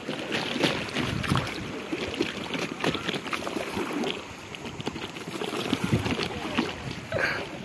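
Bamboo coracle being paddled on a river: irregular splashes and sloshing of the wooden paddle and of water against the woven hull, over the steady rush of the current.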